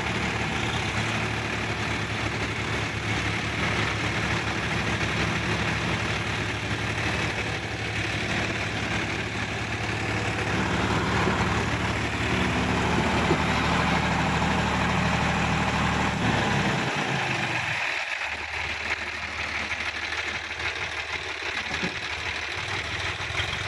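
Tractor diesel engine running steadily under load while towing another tractor on a chain. About 17 s in, its deep hum drops away and the engine runs lighter.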